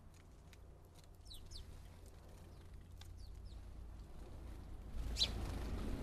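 House sparrows chirping at a seed feeder: a few short, falling chirps, with light ticks and taps. About five seconds in, a louder chirp and a rush of wing noise come as one sparrow flies up close.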